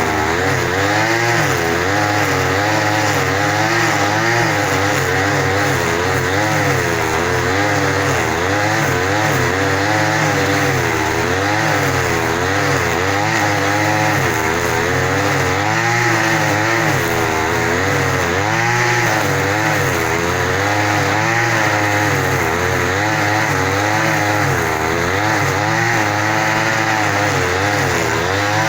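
An engine running and being revved, its pitch wavering up and down in quick, uneven swings every second or two without settling to a steady idle.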